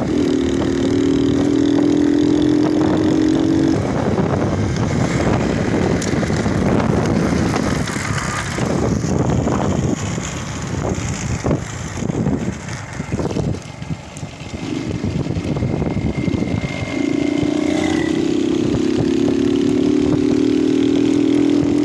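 Petrol vehicle engine running at speed, a steady drone for the first few seconds. The steady note then drops away for several seconds into irregular noise and crackles, and picks up again as a steady drone for the last several seconds.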